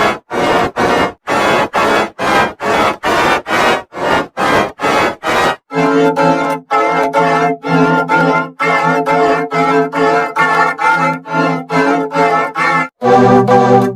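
Emergency Alert System alarm tones altered by video-editor audio effects, chopped into rapid pulses about three a second. About six seconds in, the sound changes to a stack of steady pitched tones, still pulsing. Near the end it drops lower and gets louder.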